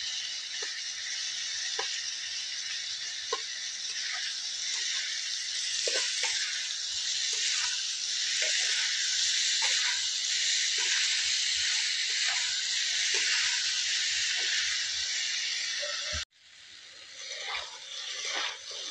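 Diced green beans, carrot and Chinese sausage sizzling in a metal wok as a metal spatula stirs and turns them, with scattered clicks and scrapes of the spatula on the pan. The sizzling cuts off abruptly about 16 seconds in, leaving quieter scraping as the stirring goes on.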